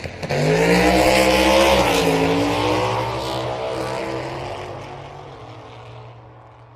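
A motor vehicle passing by: its engine note rises, drops in pitch about two seconds in, then fades away over several seconds.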